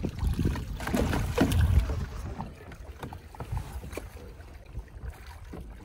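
Lake water splashing and sloshing around a capsized Hobie kayak as its hull is rolled back upright, loudest in the first two seconds, then quieter lapping with small knocks.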